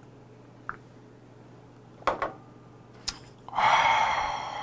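A few light clicks, then a long breathy exhale starting about three and a half seconds in, a man's reaction just after downing a shot of 50% kaoliang liquor.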